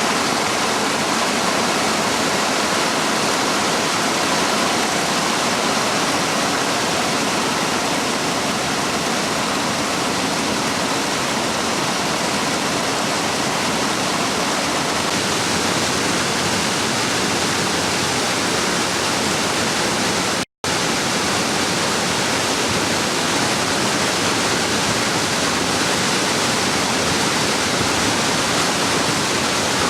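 Steady, loud rush of rain-swollen water pouring down a ravine after a storm. It cuts out for an instant about two-thirds of the way through.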